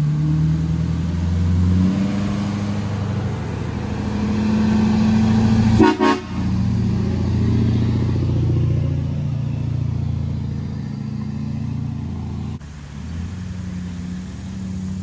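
Heavy-duty pickup truck engine pulling a loaded gooseneck trailer away, its pitch shifting as it goes. A short vehicle horn toot sounds about six seconds in.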